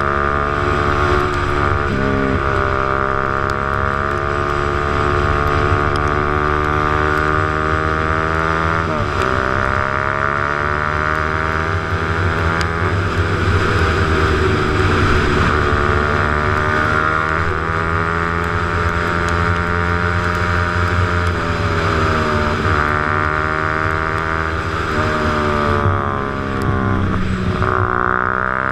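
Motorcycle engine running under way, its pitch rising and falling several times as it accelerates and shifts gear, with wind rush.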